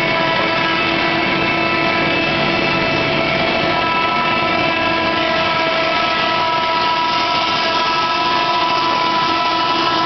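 Large industrial wood planer running, loud and steady: a constant whine of several pitched tones over dense machine noise.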